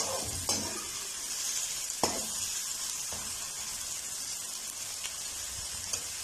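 Chopped onions sizzling steadily in hot oil in a karahi, with a metal slotted spoon stirring and knocking against the pan a few times in the first half.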